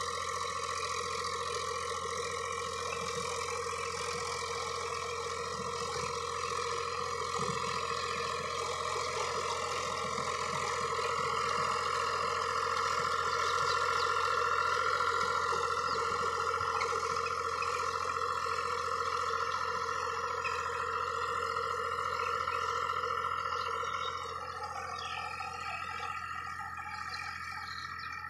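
Powertrac 439 Plus tractor's three-cylinder diesel engine running steadily under load while driving a 66-blade rotavator through grass and stubble, with a steady whine over the engine. It grows louder toward the middle and drops somewhat about 24 seconds in.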